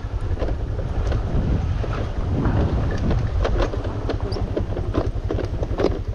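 Honda Click scooter riding over a rough, rocky dirt track: a steady low rumble of engine and wind on the microphone, with irregular clatters and knocks as the bike jolts over stones.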